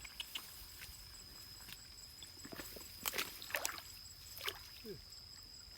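Water sloshing and splashing at the stream's edge, with scattered small knocks and clicks, over a steady high-pitched whine.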